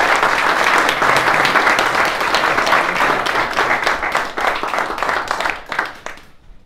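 A crowded room's audience applauding, dense clapping that dies away about six seconds in.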